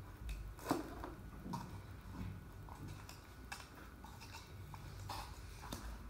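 Faint handling of a thin plastic bottle section: scattered small clicks and crinkles as it is turned and worked in the hands, the sharpest click about a second in.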